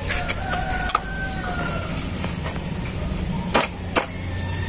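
Flat-blade screwdriver prying at the hub of a radiator cooling fan to free the blade from its motor, giving sharp clicks, two of them close together near the end. A steady low hum runs underneath.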